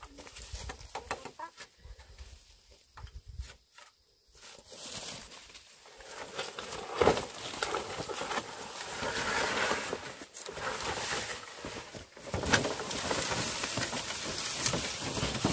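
A few faint knocks, then from about five seconds in green bamboo poles dragged and shifted over dry leaf litter and undergrowth, a sustained rustling and scraping with scattered sharp knocks as the poles bump together.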